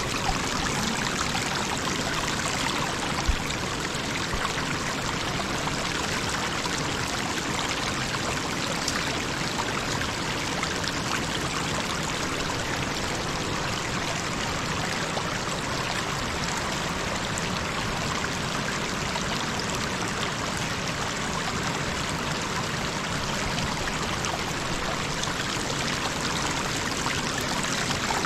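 A big, fast river rushing: a steady, even hiss of flowing water, with a single low thump about three seconds in.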